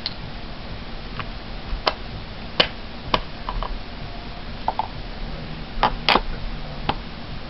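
Irregular sharp clicks and taps of hard plastic craft tools, such as a clear acrylic stamp block and stamps, being handled and set down on a wooden desk, about nine in all, a couple coming in quick pairs, over a low steady background hum.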